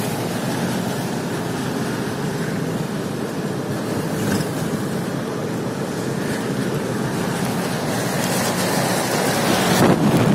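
Steady road noise inside a moving car, tyres hissing on a wet street, growing louder near the end.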